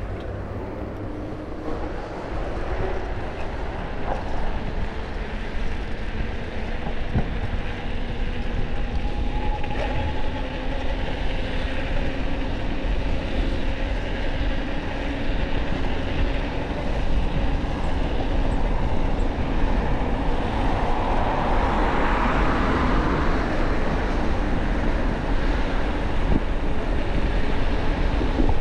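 Wind rumble on the camera microphone and road noise from a moving e-bike, with a faint electric motor whine that drifts slowly in pitch; the noise grows gradually louder. A rushing hiss swells and fades about two-thirds of the way through.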